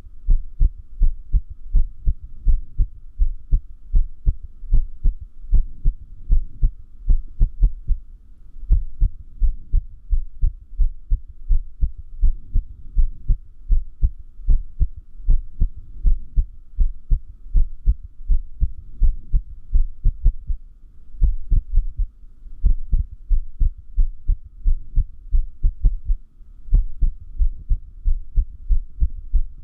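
Human heartbeat, close up: a continuous run of low lub-dub thumps at uneven spacing, with now and then a longer gap. This is an irregular heartbeat, an arrhythmia.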